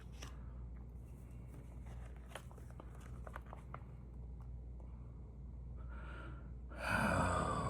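Light rustling and small clicks of paper stamps and postcards being handled, over a low steady hum, then a long loud breathy sigh from a man near the end.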